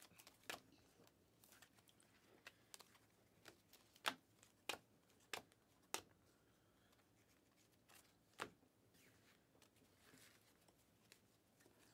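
Panini Mosaic trading cards being flipped through one at a time in a hand-held stack: faint, irregular flicks and clicks of card edges, a few of them sharper than the rest.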